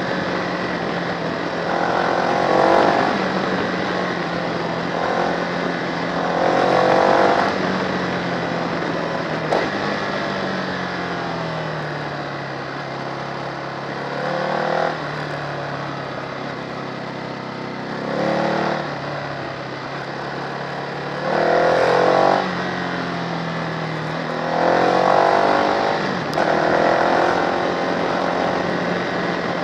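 Motorcycle engine heard from an onboard camera, accelerating hard about six times and easing off between bursts, with its pitch rising and falling as it rides through bends. A steady rushing noise runs beneath it.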